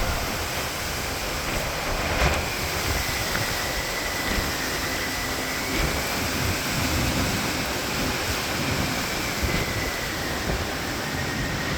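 Storm wind blowing hard with rain. A thin, high whistle rides on the wind from about two seconds in, wavering slightly in pitch.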